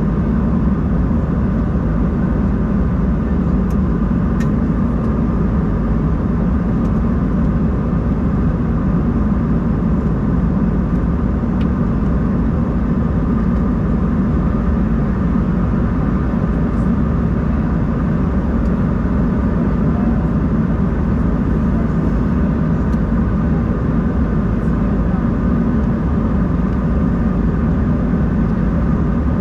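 Steady cabin drone inside an Embraer 190-E2: the engines running and air noise as an even, unchanging rumble, with a few faint ticks.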